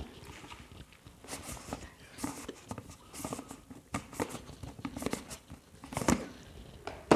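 A plastic food container with a snap-on lid being handled and worked open: irregular plastic clicks and rattles, ending in a sharp snap.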